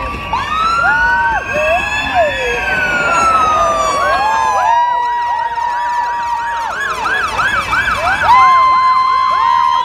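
Ambulance siren sounding, moving from slow sweeping wails into a fast, repeating yelp about five seconds in.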